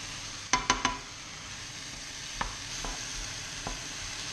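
Sliced mushrooms, carrots and onion sizzling steadily in a pan on high heat as they are stir-fried with a spatula. Three quick knocks of the spatula against the pan come about half a second in, then a few lighter taps.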